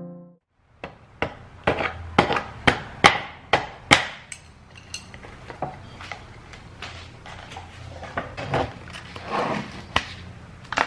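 A paper cup of Buldak instant noodles being handled and opened by hand. About ten sharp clicks and taps come in quick succession over the first few seconds, then softer ticks and a rustle of paper as the lid comes off.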